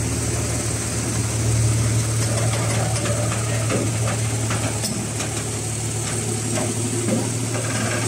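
Diesel engine of a transit concrete mixer truck running steadily with a low drone. A few light knocks come around the middle.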